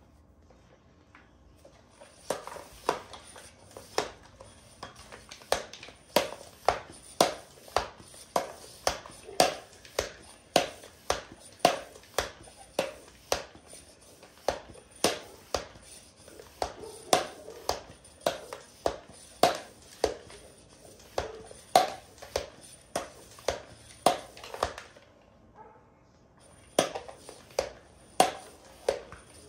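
Bicycle pump being worked to inflate the rear tyre, each stroke a short puff of air, about two a second. It pauses for a moment near the end, then a few more strokes follow.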